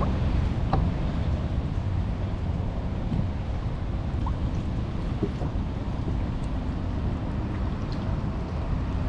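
Wind buffeting the microphone over water lapping against a kayak on open bay water: a steady low rush with no distinct events.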